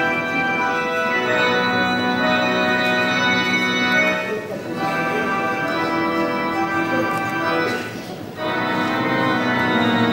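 Mixed choir of women's and men's voices singing held chords, with short breaks between phrases about four and eight seconds in.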